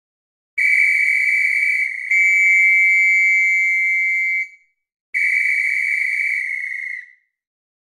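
Sampled whistle from the Orchestral Tools Abacus virtual instrument library, played as three held high notes of about the same pitch. The middle note is the longest, and the last dips in pitch as it dies away.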